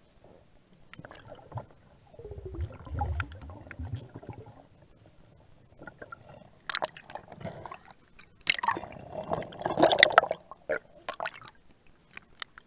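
Shallow water gurgling and sloshing around a camera held just under the surface, with scattered clicks. A low rumble comes about two seconds in, and a louder spell of gurgling and crackling comes near ten seconds.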